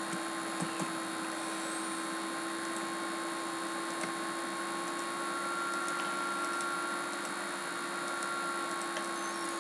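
Steady electrical hum and hiss with a few faint clicks.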